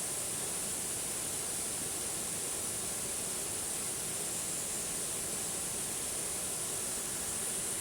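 Waterfall: a steady rush of falling water, even throughout with a strong high hiss.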